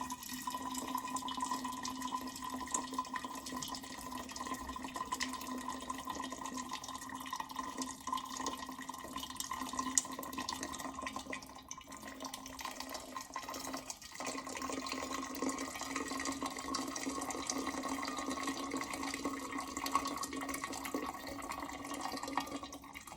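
SUSTEAS 1500 W stainless steel electric kettle heating water: a steady hiss with fine crackling as the water works toward the boil, over a steady hum.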